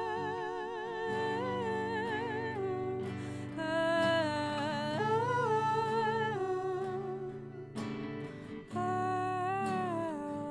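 Live acoustic duet: a woman and a man sing a wordless melody together in held notes with vibrato, over an electric and an acoustic guitar. The music dips briefly about eight seconds in.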